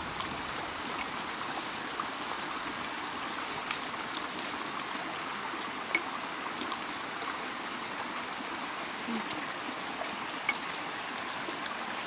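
A rocky forest creek's water running steadily over stones, with a few faint, brief clicks.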